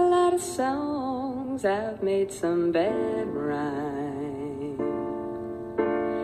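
Slow, gentle song: a wavering sung melody over soft sustained accompaniment.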